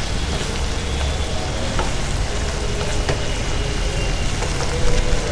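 Boiled peas sizzling in a little oil and their leftover cooking water in a nonstick pan, stirred with a wooden spatula that scrapes and now and then taps the pan. The water is still being cooked off.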